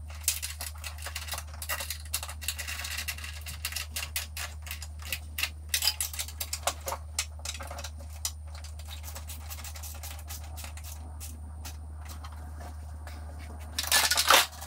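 Ratchet wrench clicking and metal clinking as the strut tower brace's mounting nuts on the strut tower are worked by hand: dense, irregular clicks, thinning out after the first half, then a short, louder metallic clatter near the end.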